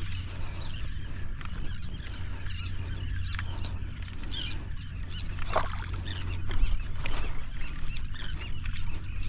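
A flock of birds calling, many short overlapping calls throughout, over a steady low hum.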